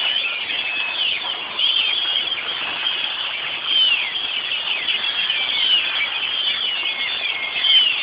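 A large flock of birds settling to roost at dusk, making a loud racket of many screeching and whistling calls that overlap without a break.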